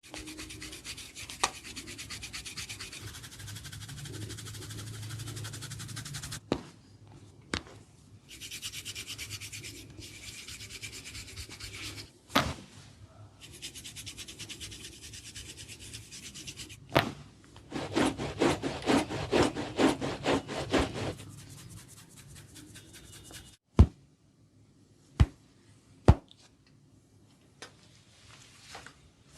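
Head massage: fingers rubbing and scratching the scalp and hair in fast, fine strokes, in several short passages that change abruptly. A few sharp clicks stand out, the loudest three close together near the end.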